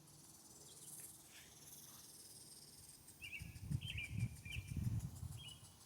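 Several short, high bird chirps in the second half, over faint outdoor background noise, with low rumbling bumps at the same time.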